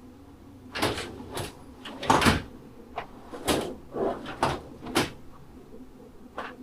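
Headlight beauty ring being pushed in, twisted and worked loose from a Harley-Davidson Low Rider ST's fairing: a run of sharp clicks and knocks over about four seconds, with one more near the end.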